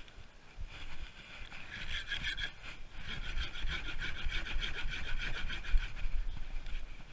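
Hand saw cutting through a green branch in quick back-and-forth strokes, starting about a second in, with a short pause near the middle.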